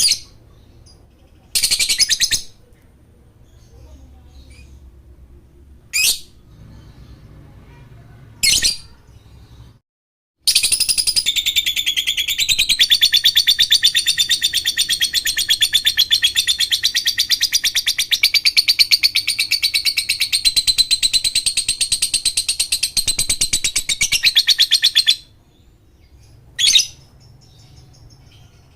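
Lovebird calling: a few short, sharp chirping bursts, then a long, fast chattering trill (ngekek) held for about fourteen seconds, then one more short burst near the end.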